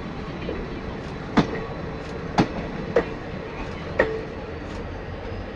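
A passing train's wheels clacking over rail joints: four sharp clacks about a second apart over a steady rumble.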